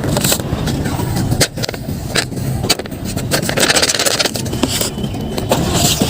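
Paper crinkling and scraping in irregular bursts, with sharp clicks and a louder burst of crinkling around the middle, over a steady low rumble.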